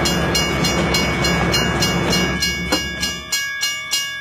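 Train running on rails: a dense rumble with a rapid, rhythmic wheel clatter that drops away a little over halfway through, leaving slower, sharp regular clacks, about two or three a second, over a thin steady tone.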